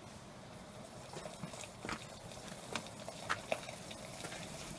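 Small wood fire crackling in a twig stove, with irregular sharp pops and snaps of burning sticks over a faint steady hiss; the pot of water on it is steaming.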